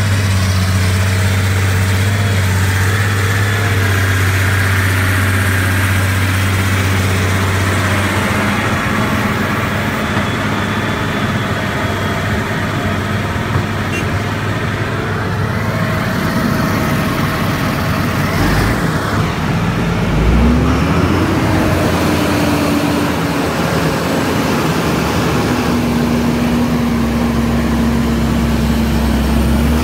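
Fendt 930 Vario tractor's six-cylinder diesel engine idling steadily, heard from the cab. About twenty seconds in the engine rises in pitch as the tractor pulls away, then runs steadily under way.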